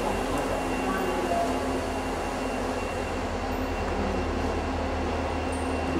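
Steady mechanical hum of a stationary passenger train standing at the platform, with a thin, steady high whine above it.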